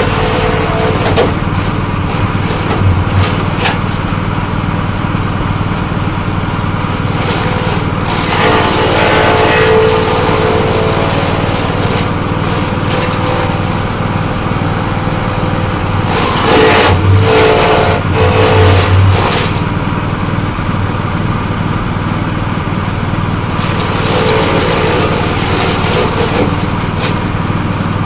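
Engine-driven grass chopper running steadily. It grows louder and harsher for a second or two a few times.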